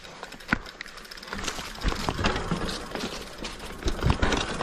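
Mountain bike riding down a rutted dirt trail: tyre noise over dirt and dry leaves with rapid rattling and clicking from the bike, and knocks as it hits bumps. The noise gets busier and louder about a second and a half in.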